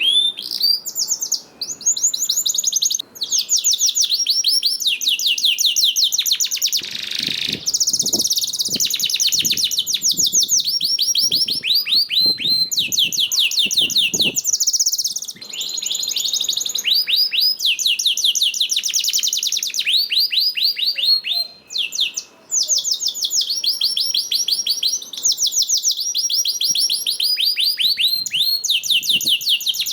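Domestic canary singing almost without pause: fast trills of rapidly repeated high notes, each run lasting about a second before the bird switches to another trill.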